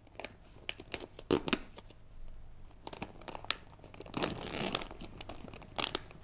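A foil-lined plastic snack pouch crinkles and crackles sharply as it is gripped and torn open across the top. The crackling is loudest about four seconds in and again just before the end.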